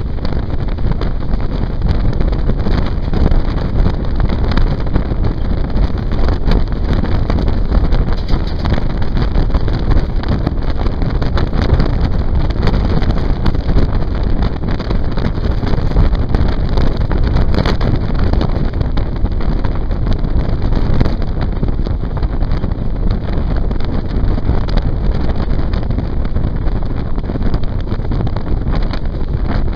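Loud, steady wind noise buffeting the microphone, held out at the open doorway of a fast-moving passenger train, mixed with the train's running noise.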